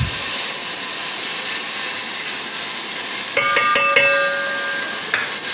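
Marinated chicken pieces sizzling steadily as they fry in an aluminium pot. A little over three seconds in, a steel spoon clinks twice against the pot and rings briefly.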